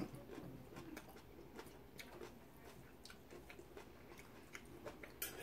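Faint chewing and mouth sounds with scattered light clicks of forks on plates as people eat, and one sharper click near the end.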